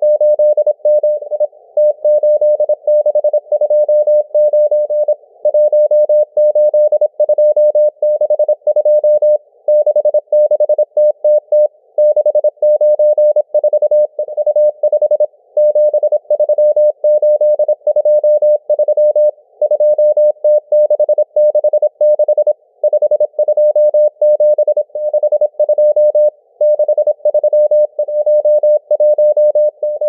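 Morse code numbers from the M12 numbers station received on shortwave in CW mode: a single beep tone keyed rapidly on and off in dots and dashes, with brief gaps every few seconds between groups.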